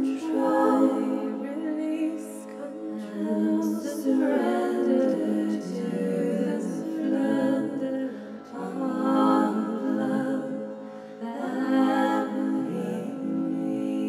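A woman singing wordless, wavering tones in long phrases with short breaths between, over a steady sustained drone.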